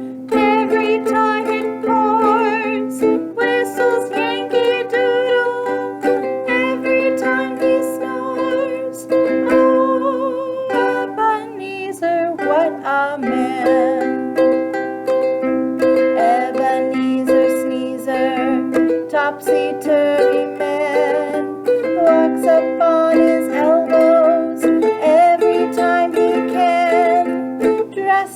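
A voice singing a children's song over plucked-string accompaniment, held chords under the sung melody without a break.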